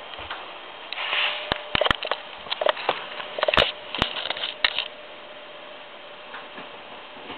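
Handling noise: a string of sharp clicks and knocks over the first five seconds, then only a steady hiss with a faint constant hum.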